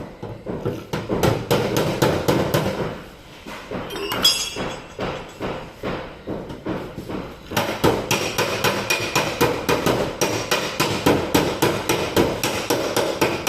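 Hammer striking a dented car body panel in rapid, regular taps, knocking down sunken spots so the metal is level for body filler. The strikes ease briefly a few seconds in, then run on at about three to four a second.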